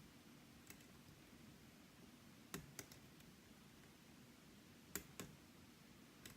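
Faint clicks of a lock pick working the sliders inside a Yale Superior lock: a handful of light, separate clicks, two close pairs near the middle and near the end, over near-silent room tone.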